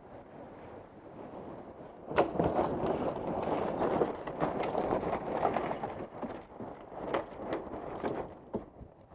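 A sailing yacht going through a tack: after about two seconds a loud burst of sails flapping and lines rattling, with many sharp cracks and clicks, over wind and water noise, easing off near the end.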